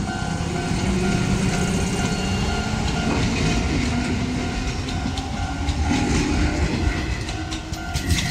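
Izuhakone Railway 3000 series electric train pulling out and running past close by: low rumble with a faint rising motor whine, then wheels clacking over rail joints toward the end as the last cars go by. A repeating ringing tone sounds in the background.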